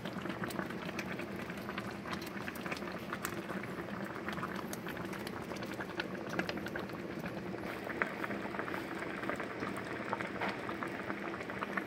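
Pot of vegetable soup broth boiling steadily, with many small irregular pops of bursting bubbles; the soup is cooked.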